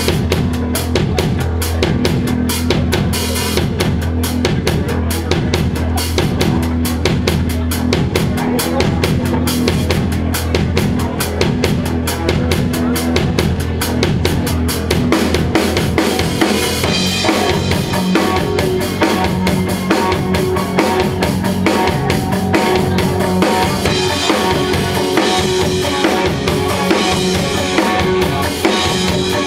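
Live power-pop rock band playing without vocals: a drum kit drives a steady kick-and-snare beat over electric bass, and sustained electric guitar chords fill in from a little past halfway.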